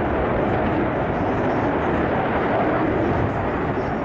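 Steady jet noise from a Dassault Rafale C's twin Snecma M88 turbofans as the fighter flies a tight, high-g turn in an air display.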